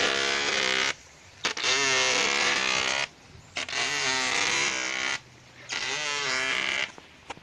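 A person's voice in phrases about two seconds long, with short breaks between them.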